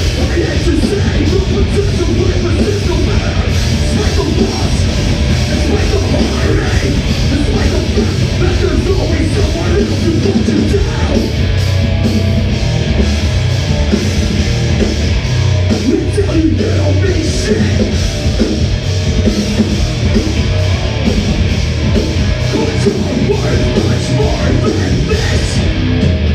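Live rock band playing a loud, heavy song at full volume without a break.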